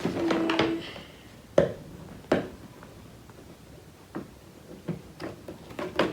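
Cardboard packaging being handled: two sharp knocks, then scattered lighter taps and clicks as the box and its tape are worked at by hand.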